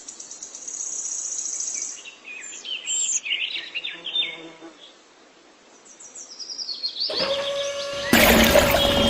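Small birds chirping in quick, short calls. Near the end a steady high tone comes in, followed by a loud noisy burst.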